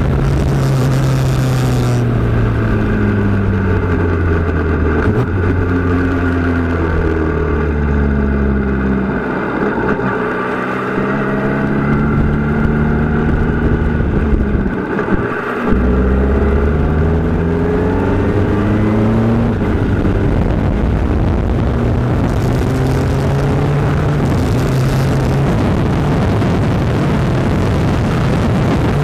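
Formula Renault 2.0 racing car's four-cylinder engine heard onboard. The engine note falls for several seconds, climbs again, dips for a moment about halfway through, rises once more and then holds at steady high revs.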